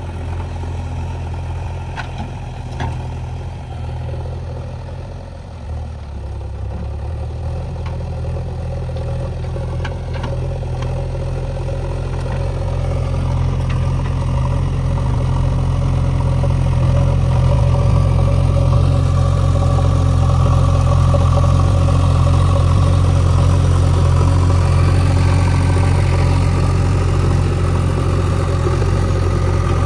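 JCB 3DX backhoe loader's diesel engine running steadily, growing louder from about six seconds in and then holding at the higher level, with a few faint knocks in the first half.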